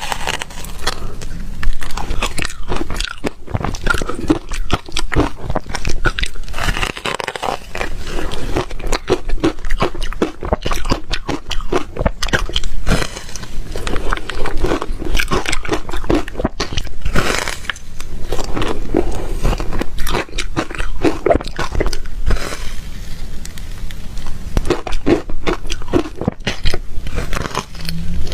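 Ice being bitten and crunched between the teeth, then chewed: a dense, continuous run of sharp crunches and crackles.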